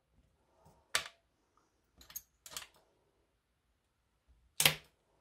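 A handful of short, sharp clicks and taps of small handheld craft tools being handled and set down on a wooden table, the loudest a little before the end.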